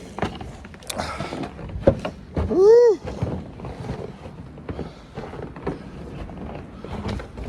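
A man's loud 'woo!' shout, rising then falling in pitch, amid scattered short knocks and clicks.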